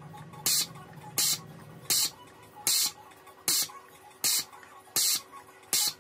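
Desoldering pump sucking melted solder off circuit-board joints in short hissing bursts, eight of them about three quarters of a second apart.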